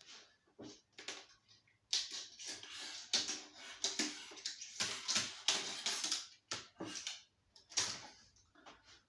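Handling noise from flat-screen TV parts: a few sharp clicks, then from about two seconds in a dense run of clattering, rustling and knocks that thins out near the end.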